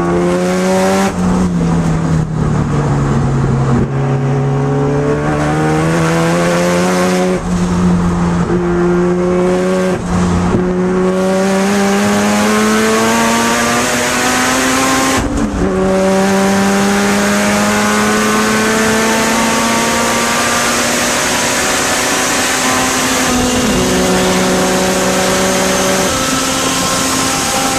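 Turbocharged 13B twin-rotor engine of a Mazda RX7 FC3S heard from inside the cabin under hard acceleration on track. The note climbs slowly in pitch and drops sharply several times as the gears change.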